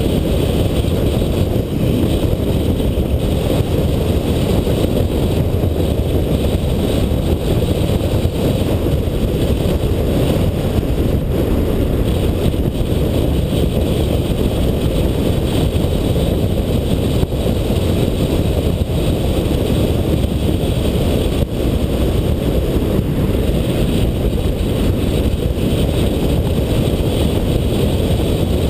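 A car driving at a steady speed: a constant low rumble of engine and road noise, with some wind noise on the microphone.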